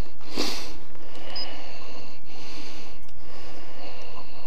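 A sharp nasal exhale close to the microphone about half a second in, over a steady high hiss.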